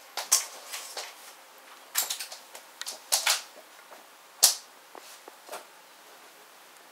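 Scattered short rustles and clicks of fabric bedding and handling, a dozen or so irregular sounds with the sharpest about four and a half seconds in, and quiet gaps between.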